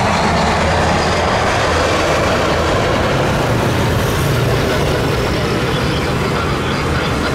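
Jet airliner engines on landing approach: a loud, steady rumbling noise with a low hum, no let-up.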